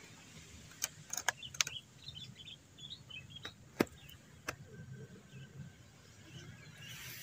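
Cat crunching dry kibble: a few sharp crunches, a cluster about a second in and the loudest nearly four seconds in.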